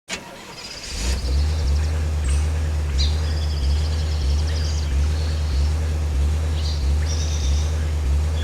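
A recorded outdoor ambience sound effect: birds chirping in short trills over a loud, steady low rumble that pulses slowly. It starts abruptly out of silence.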